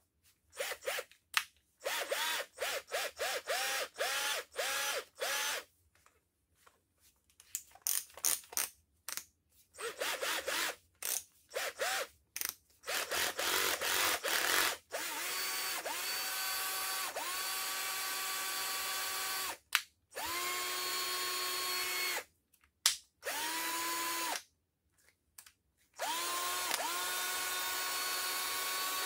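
Bosch GSR 14.4 cordless drill running after repair with freshly greased gears, triggered in many short bursts that each spin up in pitch, then run in several longer steady spells of a few seconds each.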